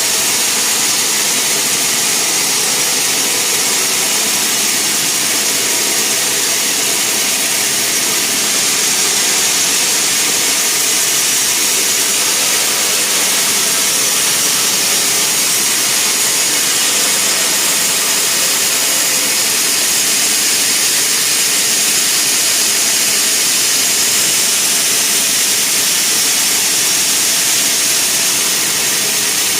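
Sawmill machinery running steadily: a loud, even, high hiss with faint steady tones underneath, without breaks or impacts.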